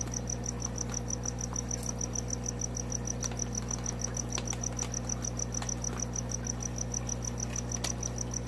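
Steady high-pitched chirping, about six even pulses a second, over a low steady hum. A few faint crinkles come from a plastic fish bag being handled.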